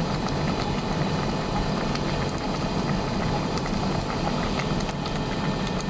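Pot of water spinach (kangkong) at a rolling boil: steady bubbling and hissing.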